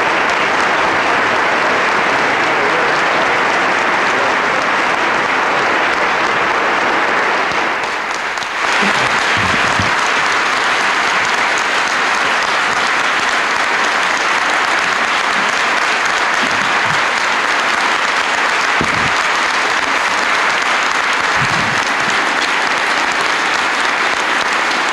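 Audience applause, a steady clapping that goes on throughout, with a brief dip about eight seconds in.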